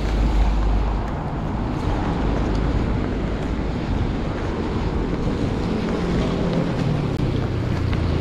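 Road traffic on a rain-wet street: a steady wash of tyres on wet tarmac, with wind rumbling on the microphone.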